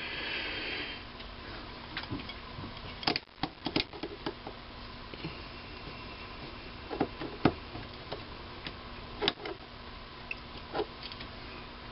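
Light clicks and taps of a caliper being handled, its jaws slid and set against a turned aluminium workpiece held in a small lathe's chuck. A faint steady hum runs underneath, with a short hiss near the start.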